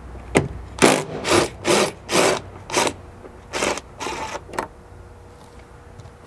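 Hand screwdriver turning out the screw behind the rear airbag cover panel on a 2012 Subaru Forester's interior pillar trim: a run of about ten short strokes, roughly two a second, with a brief pause about three seconds in.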